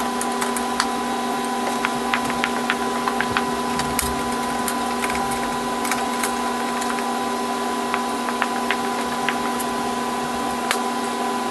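Steady machine-like hum holding several fixed tones, with many light clicks scattered through it.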